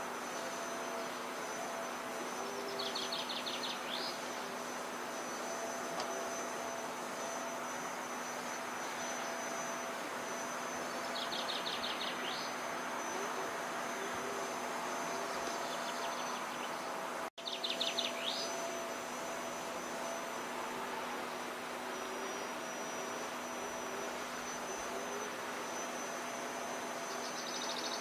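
Outdoor ambience: a steady hiss with a faint hum, and a short high trill that comes back several times. The sound drops out for an instant about two-thirds of the way through.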